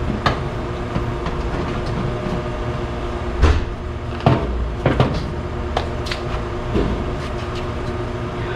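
Sheet-metal cover of an LG 36,000 BTU air conditioner's outdoor condensing unit being handled and lifted off, giving several clanks and knocks, the loudest about midway, over a steady hum.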